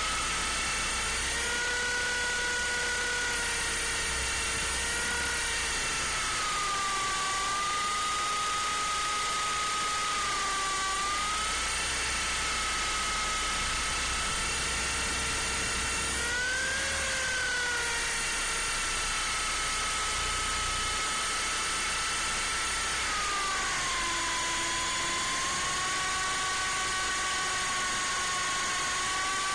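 MJX F45 radio-controlled helicopter's electric motors and rotors whining close to its on-board camera, the pitch wandering up and down, with a brief rise about halfway through and a drop about three-quarters of the way through.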